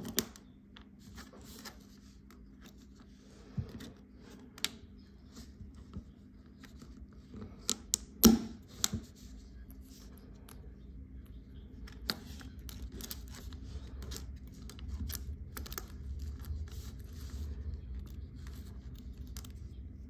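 Small plastic cable clips being handled and snapped onto a thin cable: scattered sharp clicks with light rubbing and scraping between them. The loudest snap comes about eight seconds in.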